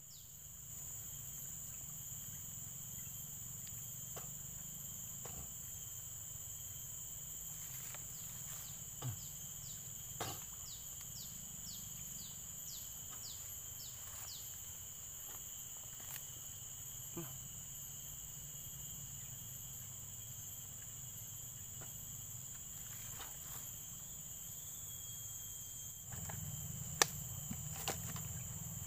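Steady high-pitched insect chorus in creekside vegetation. A quick run of about ten short, falling chirps sounds in the middle, and a few faint clicks and taps come through, the sharpest near the end.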